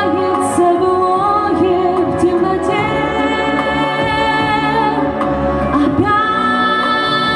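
Female vocal duet singing a pop ballad over a backing track of long held chords.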